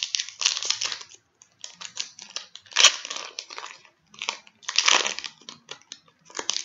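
Foil wrapper of a Pokémon trading-card booster pack crinkling as it is torn open, in three bursts of crackling with a sharp crack about three seconds in.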